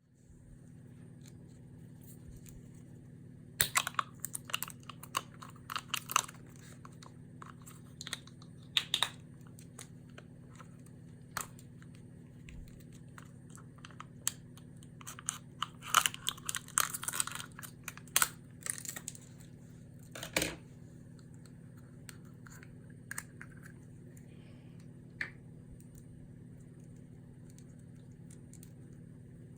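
Plastic bags being handled, crinkling and crackling in irregular clusters of sharp crackles and clicks over a steady low hum; the crackling stops about two-thirds of the way through, leaving only a few isolated clicks.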